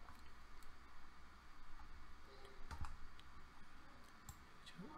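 A few faint, scattered clicks from a computer mouse and keyboard.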